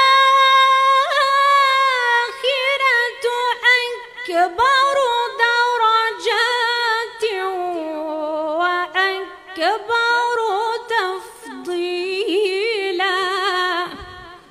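A woman reciting the Quran in a melodic Moroccan style, unaccompanied, into a microphone, with long held notes ornamented by wavering turns; the phrase ends near the end.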